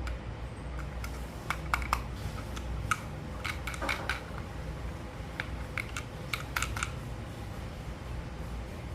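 Hard plastic toy parts clicking and clattering as a toy is handled, in short irregular clusters of sharp clicks, over a steady low hum.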